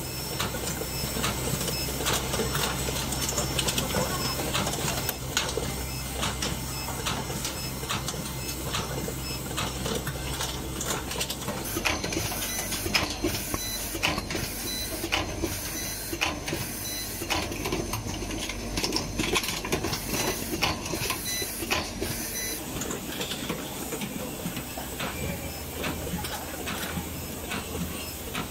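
Automated armature assembly machinery running: frequent irregular clicks and clacks of pneumatic actuators and mechanisms over a steady low hum. From about 12 s to 23 s the hum drops away and a high hiss joins the clicking, and the hum returns near the end.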